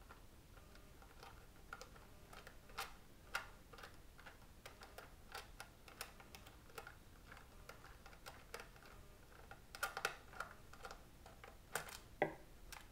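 Light, irregular clicks and taps of small plastic parts and screws being handled as a Halo paintball hopper is taken apart, with a brief cluster of clicks about ten seconds in.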